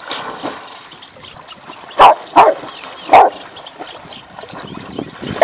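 Water splashing as a dog wades in, then a dog barking: three loud barks about two to three seconds in and one more at the very end.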